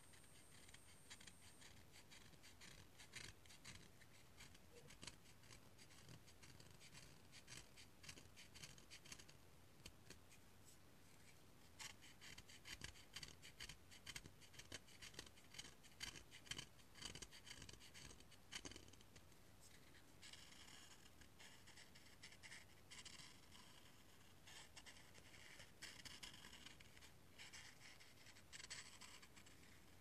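Quiet, close-up scraping of a blade along a cinnamon stick, shaving it over a cup in many quick, short strokes. The scraping grows louder about twelve seconds in, and in the second half the strokes take on a ringing, scratchy edge.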